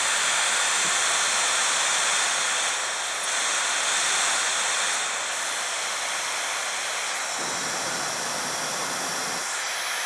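Dyson Supersonic hair dryer running, a steady rush of air with a thin high motor whine. The whine steps up in pitch about three seconds in and back down at about five seconds, and the level drops a little as the settings are switched.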